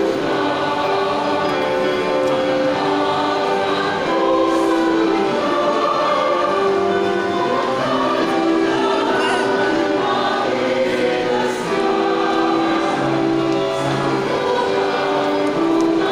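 Choir singing a hymn, a slow melody with long held notes.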